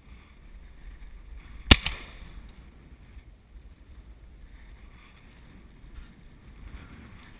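A single sharp shotgun shot about two seconds in, the loudest sound by far, over wind buffeting the microphone.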